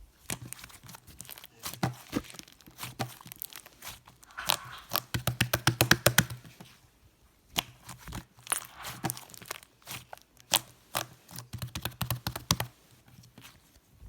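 Stiff white slime being squeezed, pressed and pulled apart by hand, giving sharp clicking and crackling pops, with a fast run of clicks about five seconds in.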